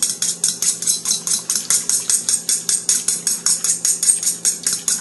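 Eggs being beaten into dashi stock and water in a metal mixing bowl, the utensil clicking rapidly against the bowl at about six or seven strokes a second.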